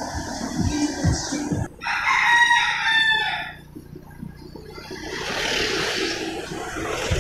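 A rooster crows once, about two seconds in, a single drawn-out call that falls away at its end. Under it runs the low rumble of the vehicle carrying the camera, with a rushing hiss of traffic in the second half.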